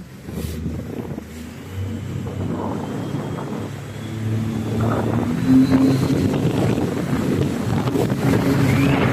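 Jet boat's engine running under way and getting louder over the first few seconds as the boat picks up speed, with wind buffeting the microphone.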